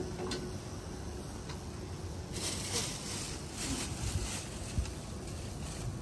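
Thin plastic bag rustling and crackling for about two seconds as a portion of fresh noodles is pulled out of it by hand, after a couple of light clicks.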